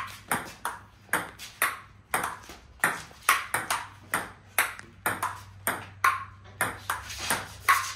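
A table tennis rally: the ball clicks off paddles and bounces on a STIGA table in a quick, fairly even run of about two to three sharp clicks a second.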